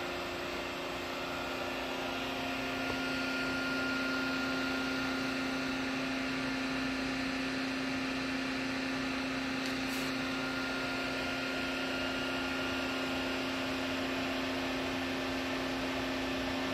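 A machine running steadily: a low drone with a fainter higher whine above it, holding an even speed throughout.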